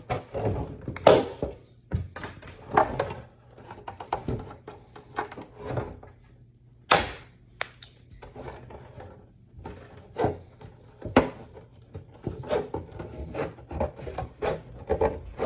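Thin plastic armour-kit pieces being handled and trimmed on a table: irregular sharp clicks, taps and knocks with scraping and rubbing between them, the loudest knocks about a second in, near seven seconds and near eleven seconds.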